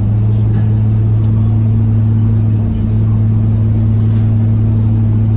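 Diesel engine of a Scania K230UB single-deck city bus running at a steady, even pitch while the bus cruises, heard from inside the passenger cabin as a low drone mixed with road noise.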